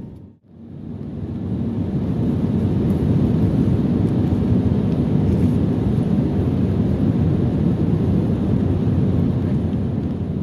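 Steady roar of an airliner's engines and airflow heard from inside the passenger cabin during descent. It fades in from a brief drop just after the start, then holds even.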